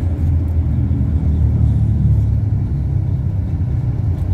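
Steady low rumble of engine and road noise from a moving vehicle, heard from on board.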